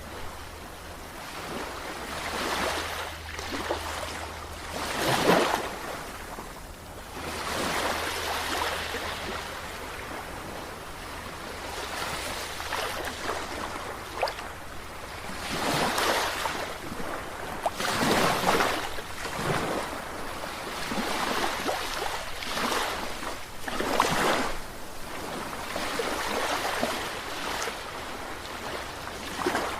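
Sea waves breaking and washing in, surging loudly every few seconds, over a steady low hum.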